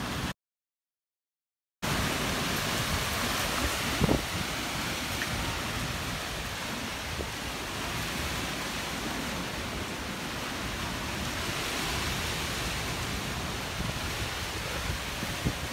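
Heavy storm rain and wind, a loud steady hiss. It cuts out to silence for about a second and a half just after the start, and there is one brief thump about four seconds in.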